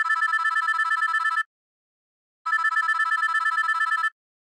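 Telephone ringing: two rings of about a second and a half each, each a rapid trill, with a second of silence between them.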